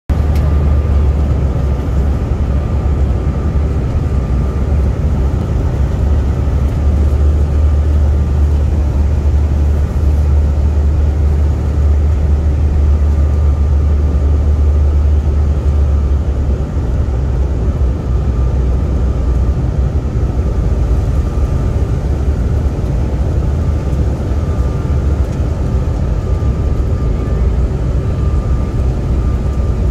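Steady airliner cabin noise in flight, a deep rumble of engines and airflow with a faint steady whine above it. The deepest part of the rumble eases slightly about halfway through.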